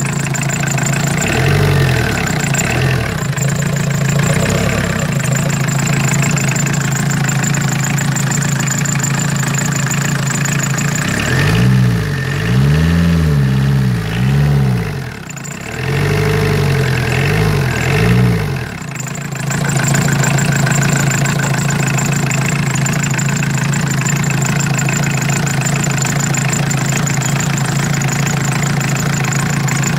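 Tata Indica's four-cylinder diesel engine idling steadily. It is revved in a few short blips early on, then in a run of several quick rises and falls about halfway through, before settling back to idle.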